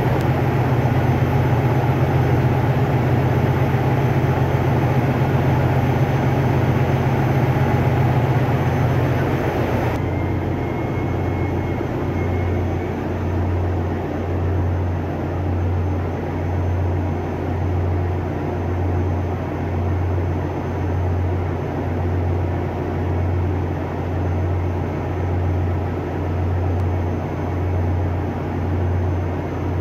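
Loud, steady drone of a ship's engine-room machinery, the running diesel engines. About ten seconds in it changes abruptly to a lower hum that swells and fades in a slow, even beat a little over a second apart.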